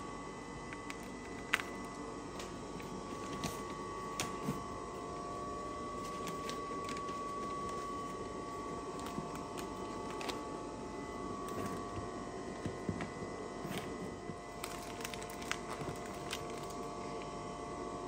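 Steady machine hum of mushroom grow-room equipment, holding several constant tones, with scattered light clicks and rustles as mushrooms are handled.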